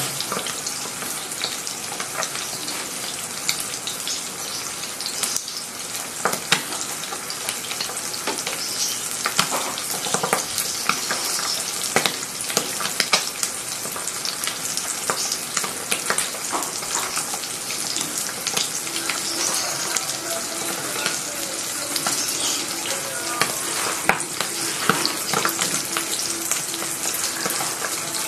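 Butterflied milkfish (dinaing na bangus) frying in hot oil in a pan: a steady sizzling hiss with frequent crackling pops of spattering oil.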